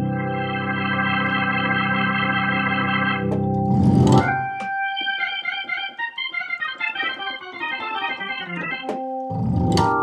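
Sampled Hammond organ with full drawbars, played on a keyboard: sustained chords, then a fast glissando about four seconds in, quick runs of notes, and another glissando near the end.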